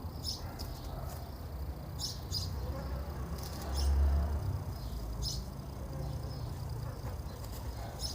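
Short, high chirps of small birds, repeated every second or so at an uneven pace, over a steady low rumble that swells briefly near the middle.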